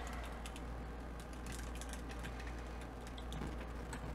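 Faint scattered clicks and taps of plastic toy parts being handled, as a sword is fitted into a large Voltron action figure's hand and the figure is adjusted, over a low steady hum.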